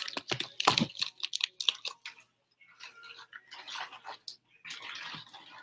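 Crinkly plastic packaging rustling and crackling in quick, irregular crackles as wrapped items are handled and moved around in a box.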